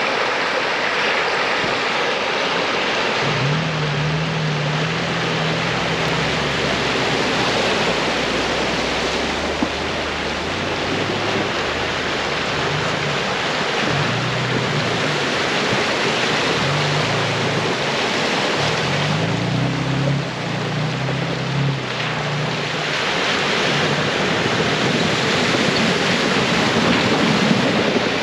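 Shallow creek rushing over rocks. From a few seconds in, a truck engine's low hum comes and goes beneath it as vehicles drive through the ford.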